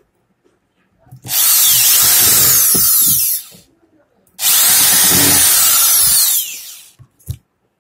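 Power drill with a screwdriver bit run twice, about two seconds each, driving screws into an angle grinder's gear housing.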